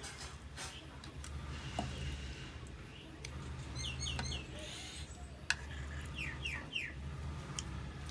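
A bird chirping in two short runs of three quick falling notes, about four and six and a half seconds in. Around them come soft clicks and smacks of rice being mixed and eaten by hand, over a low steady hum.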